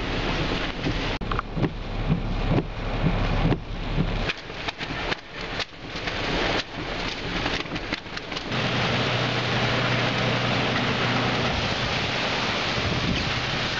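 Wind and heavy rain from Hurricane Ike. For about the first eight seconds, gusts buffet the microphone unevenly. After that comes a steady hiss of heavy rain with a low hum underneath.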